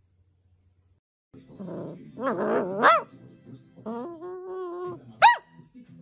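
A puppy's cries begin after a second or so of silence: short high yips that rise and fall in pitch, and a longer held cry between them.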